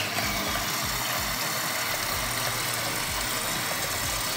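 Steady background hum and hiss, with a single sharp click right at the start.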